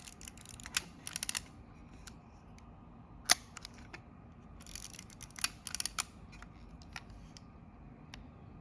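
Kodak Retina IB folding camera being cocked and fired at its 1/500 s setting: quick runs of small ratchet-like clicks from the advance and cocking mechanism, and a sharp single click of the leaf shutter firing about three seconds in, the loudest sound.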